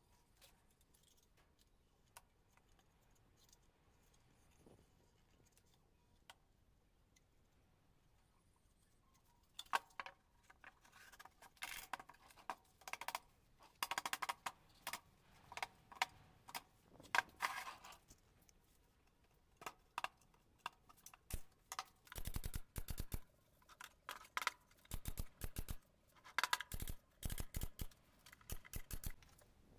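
Knocks and clatter of MDF boards being handled and fitted together, then runs of rapid sharp shots from a pneumatic nail gun fastening the MDF speaker box in the last third.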